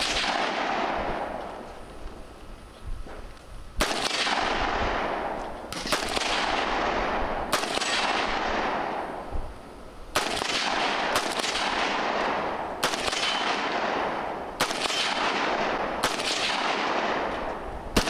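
AR-style semi-automatic rifle fired in slow, deliberate single shots, about ten, spaced one to two and a half seconds apart. Each shot is followed by a long fading echo.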